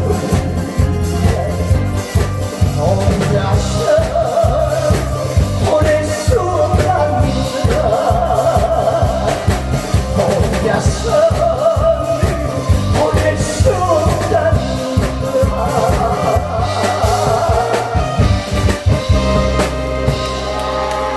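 Live music from a pumba street show: a singer over a steady drum beat. The drumming stops near the end.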